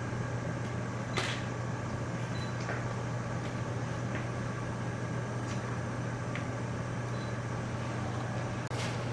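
A steady low mechanical hum with a few faint clicks and taps over it.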